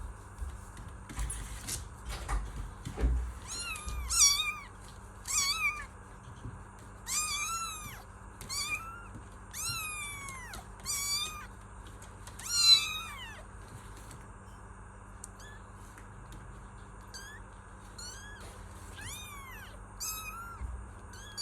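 Young kittens meowing over and over in high-pitched calls that rise and fall, the loudest in the middle stretch and softer, shorter ones toward the end. A few soft low thumps come in the first few seconds.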